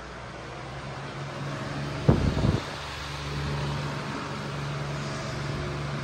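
Patton U2-1487 high-velocity floor fan running: a steady motor hum under a rush of air that grows louder over the first couple of seconds as it spins up, then holds steady. About two seconds in, a short low rumble of air buffets the microphone.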